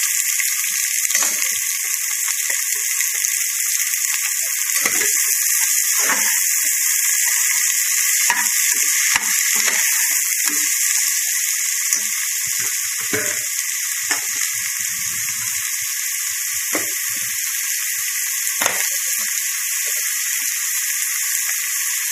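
Chopped onions sizzling steadily in hot oil in an aluminium pot, just added for sautéing, with occasional clinks and scrapes of a perforated metal spoon against the pot as they are stirred.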